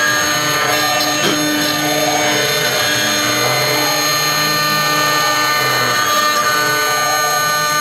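6090 CNC router spindle running with a steady high whine while a fine engraving bit cuts a coin relief into a brass disc.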